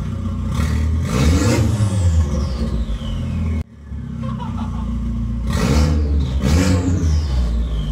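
Turbocharged engine of a Mk4 Volkswagen Jetta running with a freshly fitted, opened-up 3-inch downpipe, revved in two quick throttle blips, each followed by a whistle falling in pitch as the turbo spools down. The sound cuts off suddenly about three and a half seconds in, and then the same two blips and falling whistle come again.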